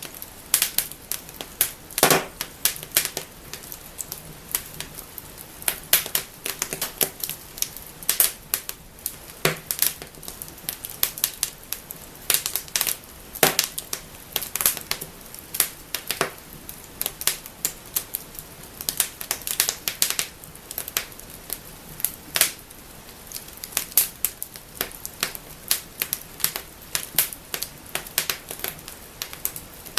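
Wood fire crackling and snapping: a dense, irregular run of sharp pops and clicks over a faint steady hiss of the flames.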